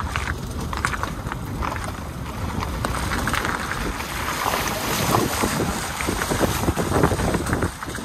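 Wind buffeting the microphone: a rough, uneven rumble with gusty crackle throughout.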